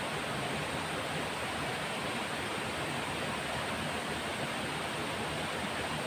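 Steady rush of a flowing forest river, an even, unbroken water noise.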